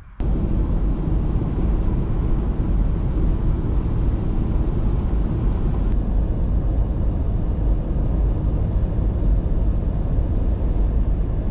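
Steady road and engine noise inside a car's cabin cruising at highway speed, about 70 mph: an even, low rumble.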